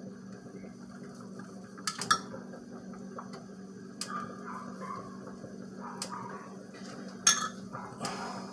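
A spoon clinking against a pot now and then, several sharp clinks with the loudest about seven seconds in, as grated soap is stirred while it melts for rebatching. A steady low hum runs underneath.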